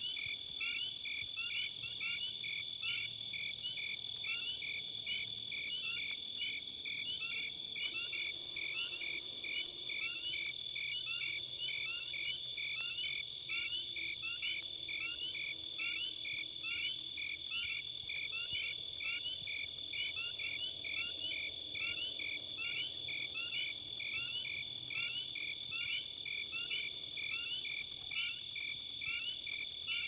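Crickets chirping in an even, regular rhythm of a few chirps a second, over a continuous high insect trill.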